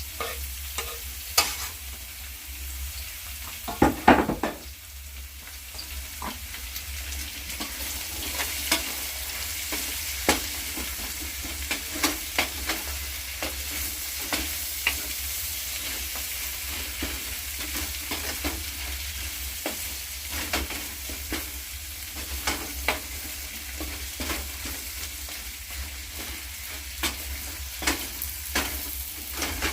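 Chicken with tomatoes, onion and chives sizzling as it fries in a pot, with frequent clicks and scrapes of a spoon stirring it. There is a louder clatter about four seconds in.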